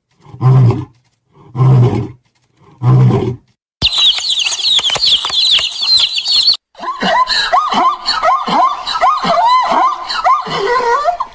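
A big cat grunting four times, deep calls about a second apart, the tail of a roaring bout. Then dense high chirping from a crowd of small birds for about three seconds. After that comes a flock of fowl clucking and calling with many short falling notes.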